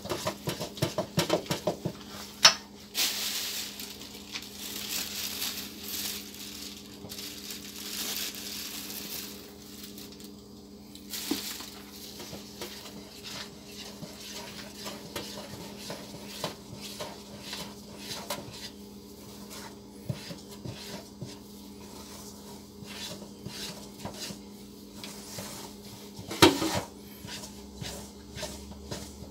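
Gloved hands mixing flour in a stainless steel mixing bowl: rustling and scraping in the flour with frequent light clinks of the metal bowl, and two sharp metal knocks, one about two seconds in and one near the end. A steady low hum runs underneath.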